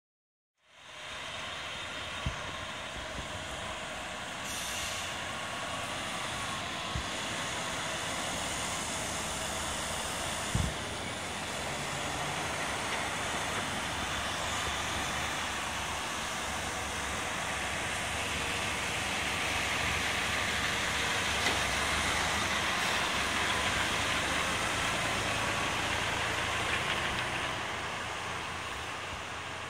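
Fire engine's diesel engine running as the truck drives slowly through a tight turn, with a short air-brake hiss about five seconds in. The engine grows louder as the truck passes close and fades near the end.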